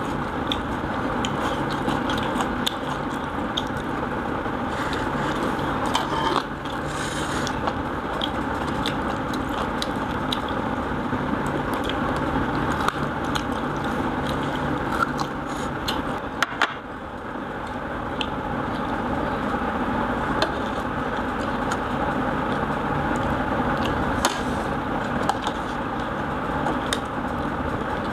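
Eating by hand at a table: fingers mixing rice on ceramic plates and scattered small clicks and scrapes of spoons against dishes, over a steady background hum.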